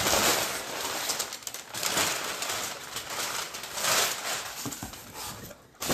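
Packing paper crinkling and rustling as it is pulled out of a cardboard shipping box, in uneven surges that die down near the end.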